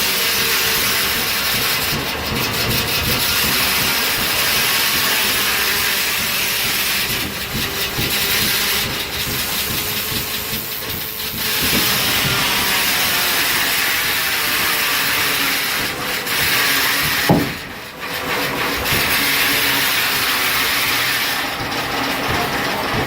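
An 1870s-era sawmill running, driven by a gas engine: a steady, loud, high noise with a few brief dips, and one short loud knock about seventeen seconds in.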